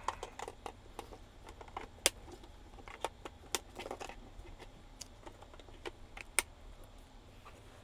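Hand handling of plastic wiring-harness connectors as the quick-release harness end is fitted to a CPC4 powertrain controller: scattered light clicks and rattles, the sharpest about two, three and a half, and six and a half seconds in.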